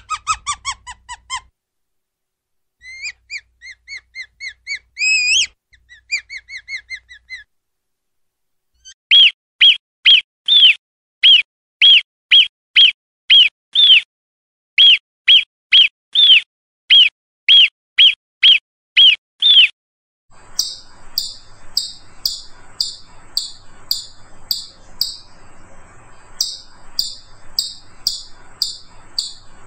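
A string of rodent calls. It opens with a European ground squirrel's high, squeaky whistles. After a short pause come a marmot's loud alarm whistles, evenly spaced at about two a second. From about twenty seconds in, a chipmunk gives quick repeated chips over a faint noisy background.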